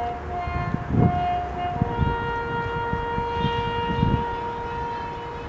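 Bugle call at a flag-lowering ceremony: a few short steady notes, then one long held lower note. Low rumble and thumps sit underneath, loudest about a second in and near four seconds.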